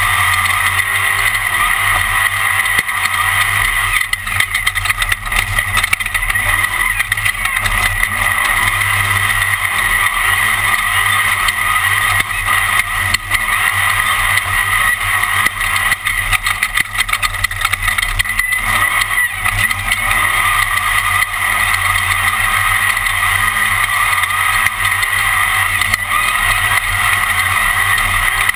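Onboard sound of a Class 1 off-road race car at speed on a qualifying lap: the engine runs hard at a nearly steady pitch, with short bursts of clatter from the car working over rough ground.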